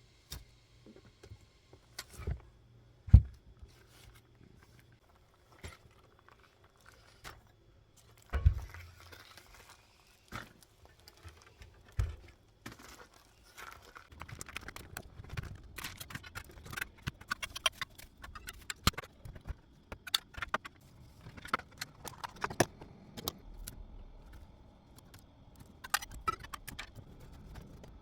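Handling noises: scattered knocks, clicks and rustling of objects being moved about, with a sharp thump about three seconds in and busier rustling and clicking in the second half.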